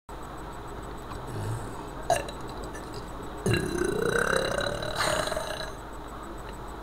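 A boy burping once: a drawn-out belch about a second and a half long, its pitch climbing as it goes. A short sharp click comes about a second before it.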